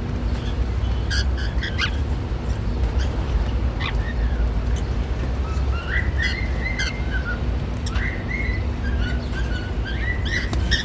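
Cockatiels chirping in short calls, then from about six seconds in a warbling whistled song in repeated phrases, over a steady low background hum.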